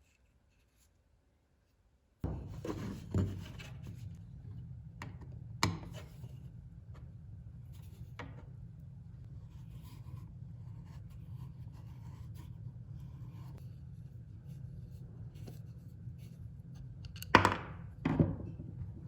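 Objects handled on a workbench: scattered knocks and clicks, the loudest two close together near the end. A steady low hum starts suddenly about two seconds in.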